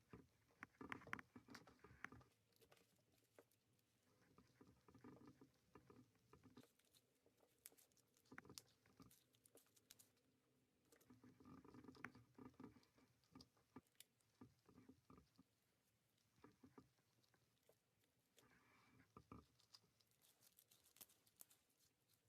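Faint, irregular sticky clicks and crackles of slime being squished and poked by hand, coming in small clusters every few seconds.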